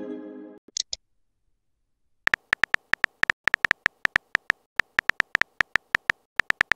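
Simulated phone-keyboard typing from a texting app: a quick, uneven run of short sharp key clicks, one per typed letter, starting about two seconds in and continuing almost to the end. At the start, the tail of a pitched message chime fades out.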